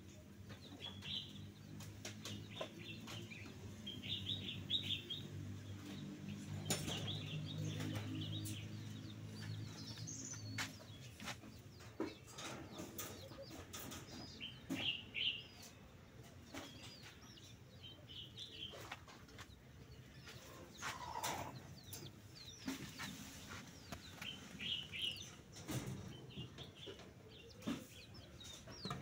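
Small birds chirping on and off, with chicken clucking, a few scattered knocks, and a low drone in the first third.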